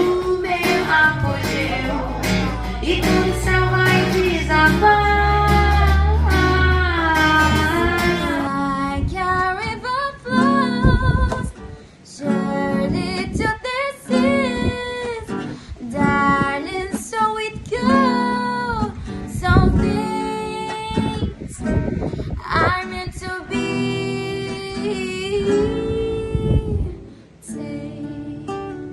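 A singer with acoustic guitar performing a song. About eight seconds in the sound changes abruptly and the deep bass drops away, leaving voice and guitar.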